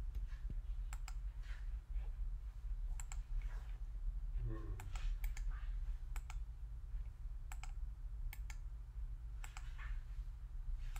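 Computer mouse buttons clicking, mostly as quick press-and-release pairs, every second or two, over a steady low hum.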